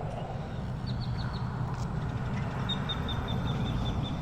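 A small bird calling in runs of quick, high chirps: a short run of about four about a second in, then a longer run of about a dozen from near the middle almost to the end. Under it runs a steady low rumble.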